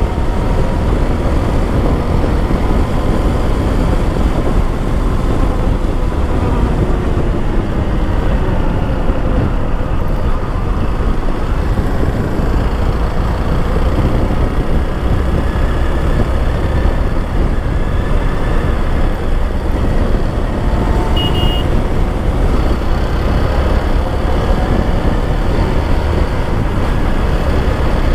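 Motorcycle engine running at road speed under steady wind rush on the rider's camera microphone. The engine note drifts gently up and down with the throttle.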